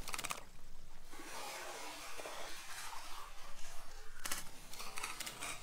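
Baitcasting fishing reel clicking in short, rapid runs while a hooked bass is fought on a heavily bent rod: once just after the start and twice near the end, over a rough, noisy background.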